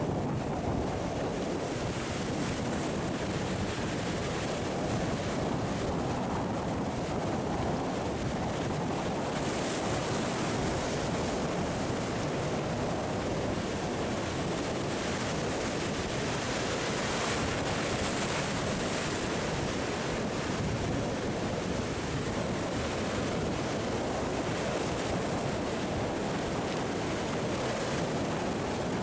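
Sea surf breaking and washing against shoreline rocks, a continuous rushing wash whose hiss swells a couple of times, with wind buffeting the microphone.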